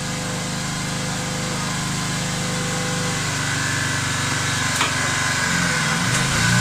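A small motor running steadily, its pitch shifting near the end.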